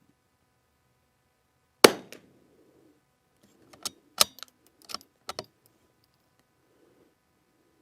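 A single .22 LR shot from a bolt-action CZ 455 rifle firing Eley Team ammunition, with a short ringing tail, followed by a few quieter sharp metallic clicks of the bolt being worked.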